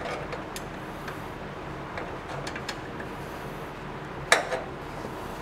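Small wrench clicking against metal as the bolt on top of a tractor's fuel filter head is snugged down: a few light metallic clicks, with a sharper one about four seconds in, over a steady low background hum.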